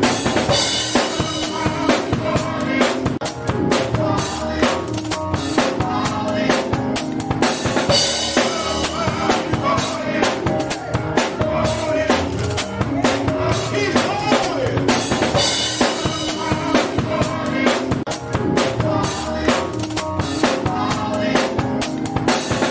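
Gospel choir singing an up-tempo song, backed by organ and a drum kit keeping a steady beat, with hands clapping along.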